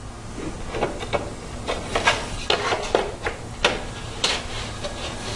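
Wooden well-divider slats of a quadratic diffuser knocking and scraping as they are slid into the slots of the wooden frame, a dry fit without glue: a dozen or so irregular knocks.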